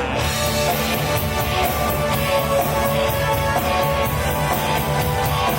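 Rock music with electric guitar and drums playing over a PA system at a car show stand.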